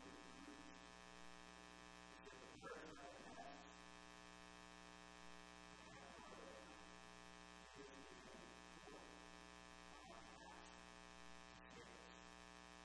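Near silence: a faint, steady electrical hum and buzz, with a few faint, brief indistinct sounds over it.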